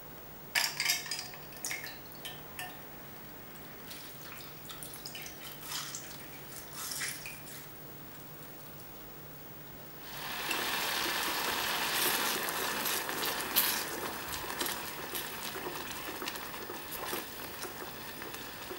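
Scattered light clinks and taps of a glass jar and utensils against a hammered aluminium saucepan as mango purée is added. About halfway through, a steady bubbling hiss starts as the purée heats toward a boil and is stirred with a silicone spatula, with small scrapes and taps against the pan.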